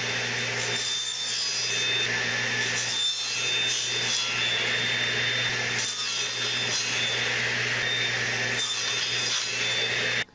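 Table saw running steadily while a crosscut sled is pushed through the blade again and again, cutting a wooden strip into short pieces of equal size. The saw sound stops abruptly at the end.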